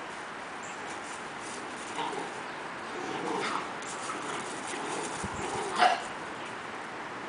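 Chocolate Labrador-mix puppies play-fighting, giving short growls and whines, with one brief sharp yelp, the loudest sound, just before six seconds in.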